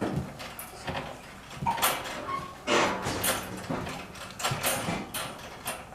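Jolly Jumper baby bouncer creaking and squeaking in its spring and straps as it bounces, in irregular strokes about every half second to a second.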